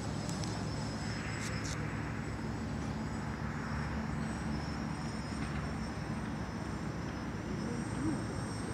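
Small FPV quadcopter's brushless motors and propellers buzzing steadily in flight overhead, with a low hum.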